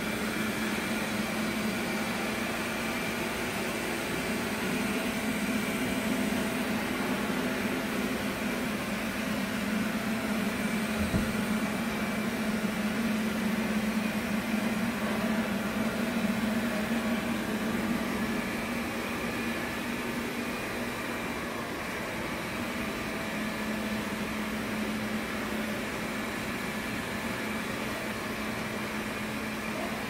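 Robot vacuum cleaner running, a steady mechanical hum with a faint higher whine. It grows a little louder, then eases off after about twenty seconds, with one soft knock about eleven seconds in.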